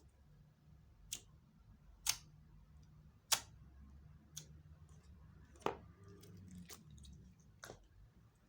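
Slime being mixed and pressed by hand, giving sharp clicking pops about once a second as trapped air pockets burst, over a faint low hum.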